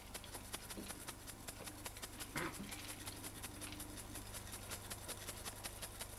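Faint hiss from the old videotape, with a brief soft baby coo about two and a half seconds in that holds a low tone for a second or so.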